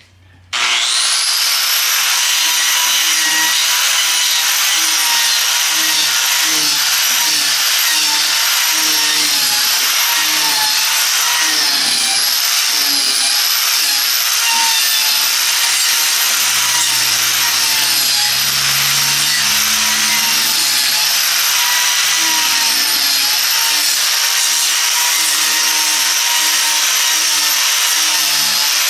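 A power grinder cutting into a wood burl bowl blank, taking weight off the corners so the blank stops bouncing and vibrating when turned. It starts suddenly about half a second in and then runs steadily with a high whine whose pitch wavers slightly as it bites into the wood.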